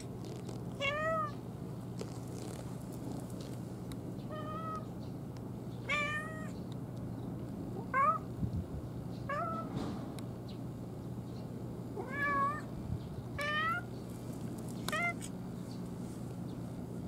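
A domestic cat meowing repeatedly: about eight short meows, each rising and then falling in pitch, a second or two apart. A steady low hum runs underneath.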